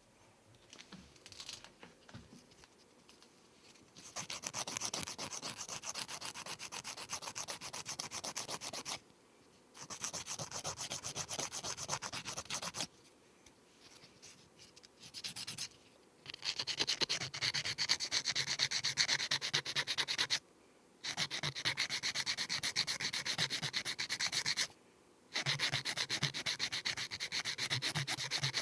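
A nail file rasping back and forth across fingernails in fast, even strokes, in several long runs separated by short pauses. The first few seconds hold only faint light ticks before the filing starts.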